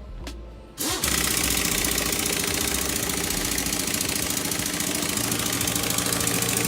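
A loud, steady machine running, starting suddenly about a second in, with a low hum joining about five seconds in.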